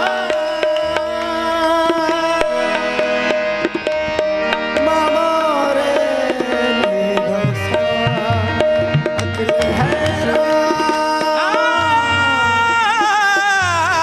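Qawwali music: a harmonium holds a steady melody over tabla strokes, and the tabla's bass drum comes in strongly about halfway through. Near the end a singer's voice waves up and down in a long wordless run.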